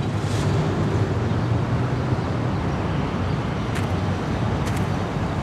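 Steady city street traffic noise: a low, even rumble of road vehicles.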